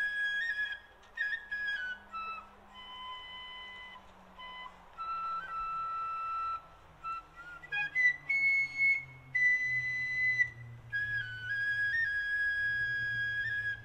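Solo flute playing a slow air: one melodic line of long held notes, some sliding into the next, broken by short pauses between phrases.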